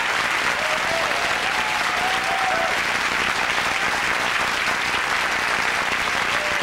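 Studio audience applauding steadily, with a few voices calling out in the first few seconds.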